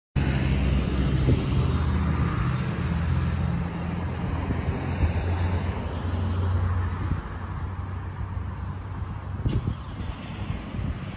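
Road traffic: a motor vehicle's engine running with a low, steady hum, louder over the first several seconds and then fading.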